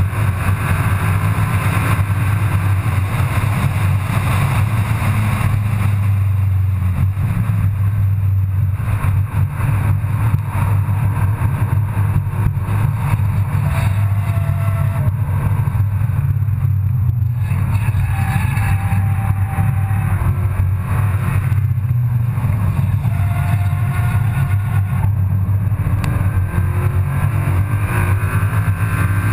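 Car engine and road noise heard from inside the cabin at track speed: a steady low drone with only small changes in the engine note.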